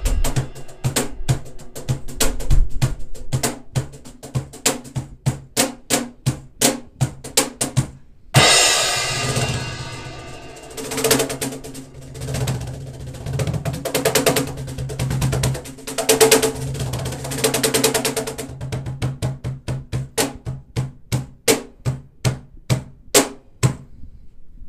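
Cajon played with the hands: a steady rhythm of sharp slaps and deeper bass strokes. About eight seconds in, a cymbal crash rings out, followed by a fast roll of strokes lasting several seconds, after which single strokes resume.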